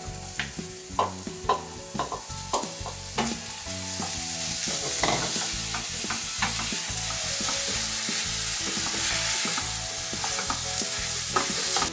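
Diced bacon and sliced onion frying in butter in a stainless steel frying pan, stirred with a wooden spoon. The spoon knocks and scrapes against the pan in the first few seconds, then the sizzle grows louder after about four seconds and stays steady.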